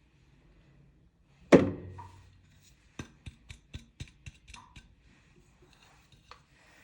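A sharp knock with a short ringing, like a glass jar set down on a kitchen counter, then about ten light, quick taps of hard utensils on glass or metal over about two seconds.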